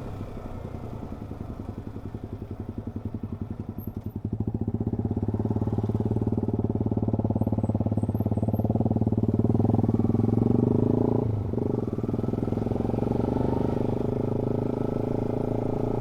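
Motorcycle engine running with an even pulsing beat. About four seconds in it grows louder and steadier, and it dips briefly just past eleven seconds before carrying on steadily.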